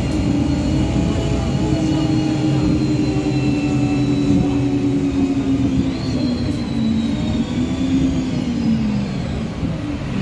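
Karosa B951E city bus heard from inside the passenger cabin while driving: a steady engine and drivetrain drone with a pitched hum that falls late on as the bus eases off, then begins to rise again right at the end as it picks up speed.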